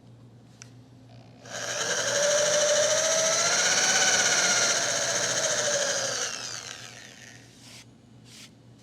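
Electric drill with a 3/8-inch Forstner bit boring a shallow hole into wood. The motor whine starts about a second and a half in, runs for about five seconds, then winds down, falling in pitch, with a few faint clicks near the end.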